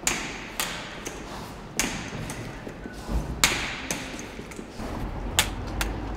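Elbow crutches and footsteps knocking on a hard floor: irregular sharp taps and thuds, about seven in all, with a short echo after each.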